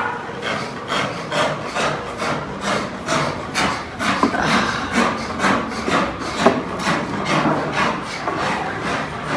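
Wood being rasped in quick, even strokes, about three a second: a Kashmir willow cricket bat blade being shaped with a hand rasp or file.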